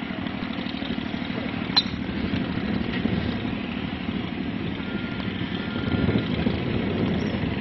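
A steady low engine drone, with one sharp click a little under two seconds in.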